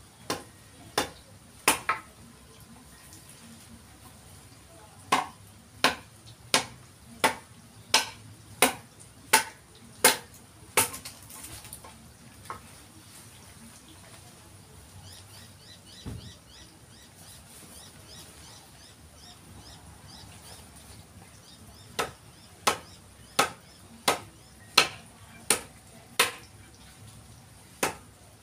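Mallet striking a chisel to carve a forest red gum (eucalyptus) didgeridoo, sharp wooden knocks about three every two seconds in runs, with a long pause midway.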